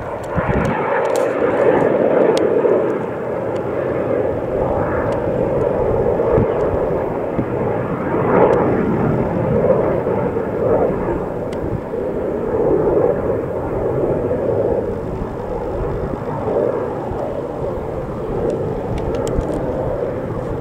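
BAC Strikemaster jets' Viper turbojet engines heard in flight during a display: a continuous rushing jet noise that swells and eases as the aircraft manoeuvre overhead.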